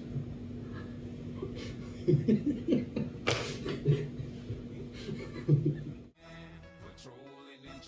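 A person laughing and chuckling in short bursts over a steady machine hum. About six seconds in it cuts abruptly to music.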